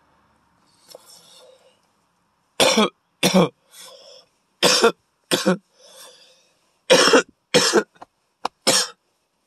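A man coughing hard in a fit of about eight loud coughs, mostly in pairs, with quieter breaths between them, after a hit from a cannabis vape cartridge.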